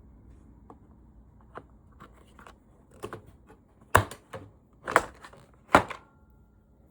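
Light clicks and rattles followed by three sharp knocks about a second apart, near the middle: a car's pillar grab handle being worked on and knocked against its mount while it is fastened in place.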